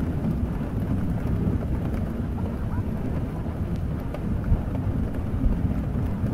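Steady rain ambience with a deep continuous rumble underneath and faint scattered ticks.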